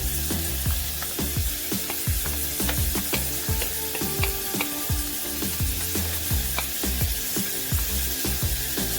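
Chopped onion, garlic and ginger sizzling in hot oil in a saucepan as they are stirred, over background music with a steady beat.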